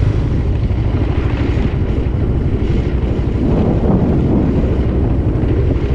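Honda ADV350 scooter's single-cylinder engine running at low speed as the rider slows down, its steady note giving way to an uneven low beat, with wind buffeting the microphone.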